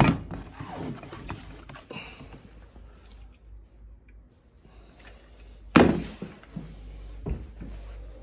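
Objects being handled in a cardboard box of old household things: knocks and rustling as items are moved and a metal tin is picked up. There is a single sharp thump about six seconds in and a few lighter knocks near the end.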